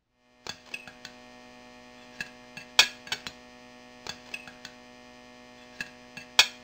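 Steady electrical hum with about a dozen small, sharp metallic clicks and clinks scattered over it, the loudest a little under three seconds in and again near the end.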